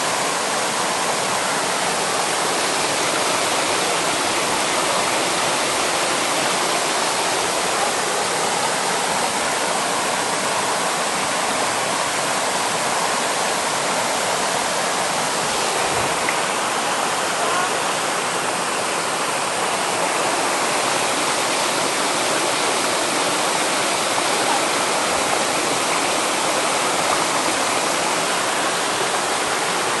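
Mountain stream cascading over smooth rock slabs: a steady rush of white water, unbroken throughout.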